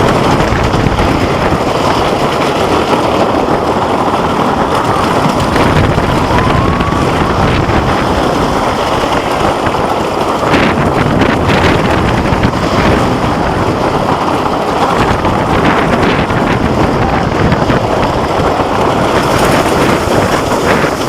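Wooden roller coaster train running along its wooden track, heard from a rider's seat: a loud, steady rumble and rattle with wind rushing over the microphone, and a few sharp clatters about halfway through.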